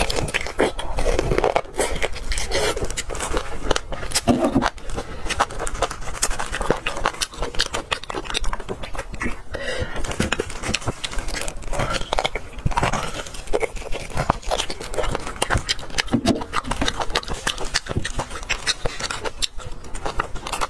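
Close-miked eating sounds from marrow bones in chili oil: sucking and chewing the marrow, with many wet mouth clicks and smacks and a metal spoon scraping marrow out of the bone.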